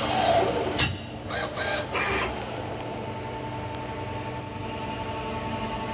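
Miyano BNC-34C CNC lathe settling after its run. There is one sharp clack just under a second in, then a few short chirping, clattering sounds, then a steady machine hum with a faint whine.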